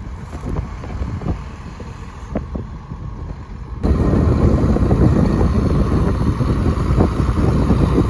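Diesel engine of a John Deere loader tractor running while the tractor works the loader, mixed with wind buffeting the microphone. It gets suddenly louder about four seconds in.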